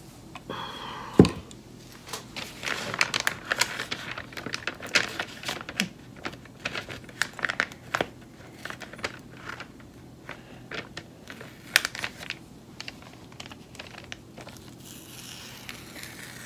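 Washi tape being peeled up off photo paper: a run of short crackling rips and paper crinkles. A single sharp knock about a second in, the loudest sound, as something hard is set down on the table.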